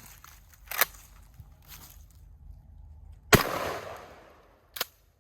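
A single loud blast from a Remington 870 Express Magnum 20 gauge pump shotgun about three seconds in, its report ringing on for about a second. A sharp click comes a little under a second in, and another shortly after the shot.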